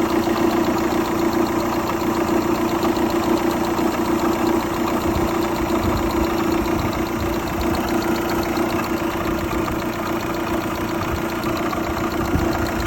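Opel Astra 1.8 X18XE1 16-valve four-cylinder petrol engine idling steadily, with a fast, even ticking over its hum: the knock and clatter the owner is trying to trace.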